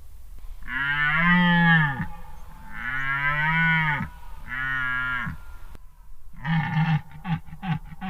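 Red deer stag roaring: three long, drawn-out bellows that rise and then fall in pitch, followed about a second later by a quick run of short grunting calls, the stuttering end of the roar that the title likens to a laugh.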